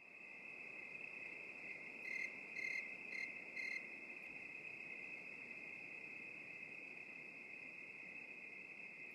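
Faint, steady high trill of crickets, with four louder chirps about half a second apart between two and four seconds in.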